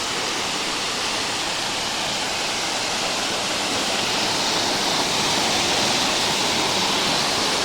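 A waterfall rushing steadily: an even, unbroken noise of falling water.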